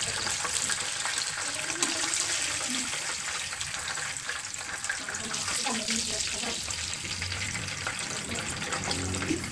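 Chicken pieces frying in shallow hot oil in a wok, a steady sizzle with fine crackles, as the pieces are turned and lifted out with metal tongs.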